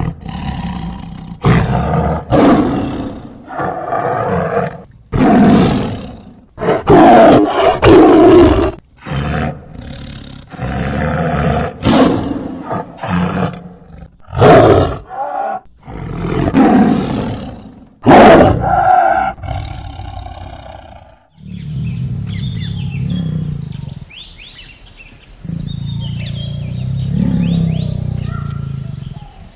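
A tiger roaring and snarling: a series of about fifteen short, loud roars over the first twenty seconds. After that, quieter low growling continues, with birds chirping.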